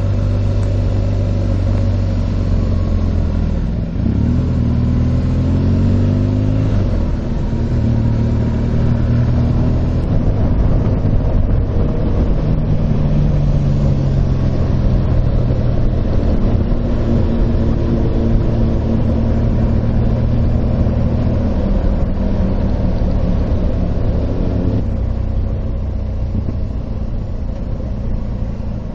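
Motorcycle engine running under way, its pitch shifting as the rider changes speed, with steps about 4 and 7 seconds in.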